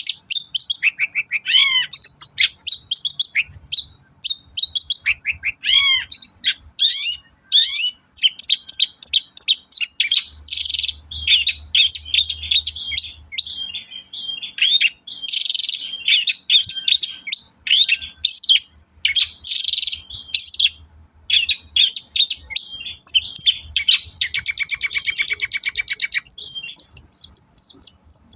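Long-tailed shrike singing a fast, varied song: quick sweeping whistles and chips, harsh chattering bursts at intervals, and a rapid buzzing trill about 24 to 26 seconds in.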